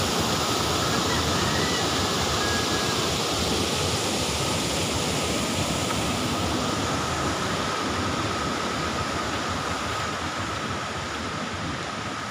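Steady rush of water from a small waterfall cascading over a rock ledge into a river pool, fading slightly toward the end.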